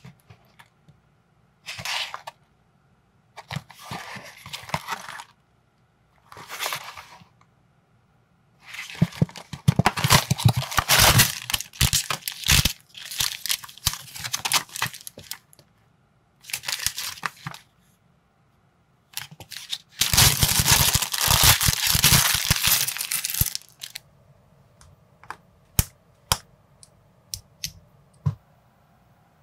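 A cardboard toy box being opened and a plastic parts bag torn and crinkled, with paper rustling from the folded instruction leaflet, in a series of bursts. Near the end come a few sharp clicks of small plastic building pieces being snapped together.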